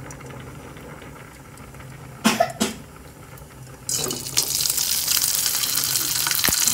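Split dried fish sizzling in hot oil. The sizzle starts suddenly about four seconds in, as the fish goes into the oil, and then runs steady and loud. A little after two seconds there are two short, sharp sounds.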